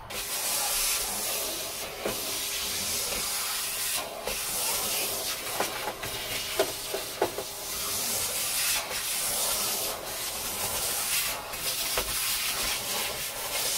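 Vacuum cleaner running steadily with a rushing hiss, its hose nozzle dragged over a bare ribbed steel van floor. Scattered clicks and rattles come from debris being sucked up the hose.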